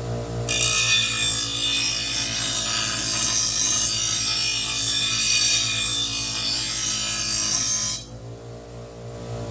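Steel lawn mower blade edge being ground against a sharpening stone: a continuous gritty scraping that starts abruptly about half a second in and stops suddenly near the end. These are the final passes to bring the dull cutting edge back to sharp.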